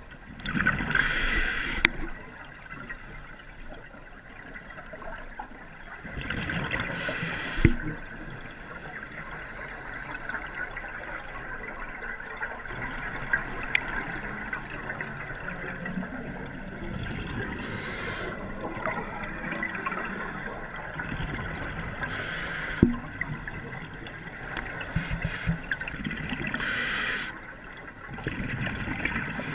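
Underwater sound of scuba breathing: bursts of exhaled regulator bubbles rushing past about every four to ten seconds, each lasting about a second, over a steady underwater hiss. A few sharp clicks are heard between breaths.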